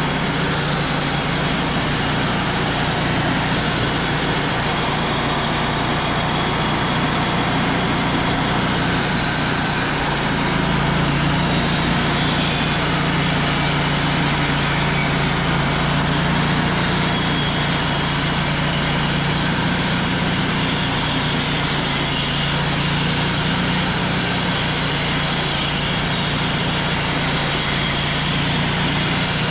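Wood-Mizer LT35 portable band sawmill running steadily, its engine humming under load, with a slight rise in pitch and loudness about ten seconds in.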